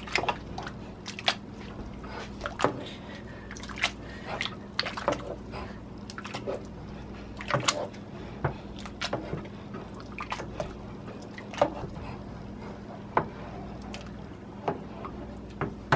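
Black potato masher working boiled potatoes into hot cream-based soup in a metal pot: irregular wet squishing and sloshing with scattered sharp clicks and knocks.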